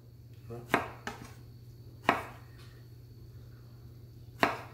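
Chef's knife slicing strawberries on a wooden cutting board: four sharp knocks of the blade hitting the board at uneven intervals, over a steady low hum.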